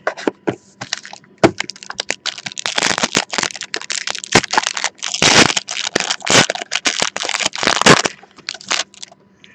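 Foil wrapper of a trading-card pack crinkling and crackling as it is torn open by hand, a dense run of sharp crackles that thins out near the end.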